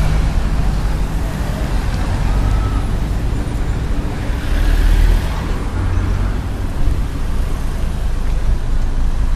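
Steady low rumble of road traffic heard from a moving car: engine and tyre noise with other cars driving close by, rising briefly about five seconds in.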